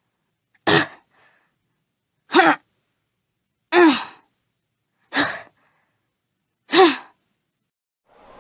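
Body-hit sound effects: five short blows about a second and a half apart, each with a pained vocal grunt that falls in pitch.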